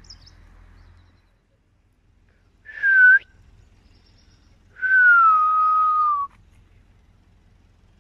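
A person whistling twice: a short whistle about three seconds in, then a longer one that slides down in pitch and holds before stopping.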